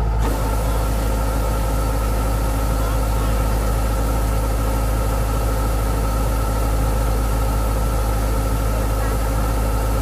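Kubota DC-105X combine harvester's diesel engine running steadily while its unloading auger runs, with a deep hum and a constant thin whine. The grain tank is being emptied through the spout.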